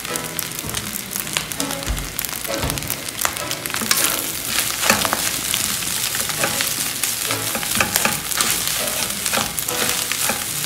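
Rice sizzling as it fries in a non-stick frying pan, stirred with a wooden spatula whose strokes click and scrape against the pan throughout.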